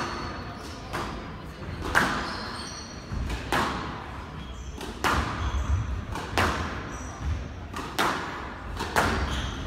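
Squash ball being hit back and forth in a rally: sharp cracks of racket on ball and ball on the walls, about one every second or so, each followed by a short echo.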